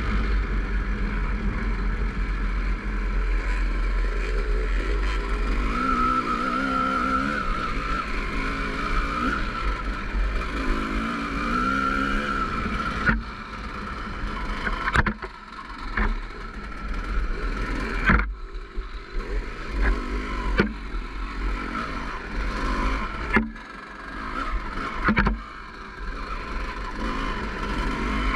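Off-road dirt bike ridden at speed: the engine holds its revs with small rises and falls, and wind rumbles on the microphone. From about halfway the throttle opens and closes in short blips, with several sharp knocks as the bike rides over rough ground.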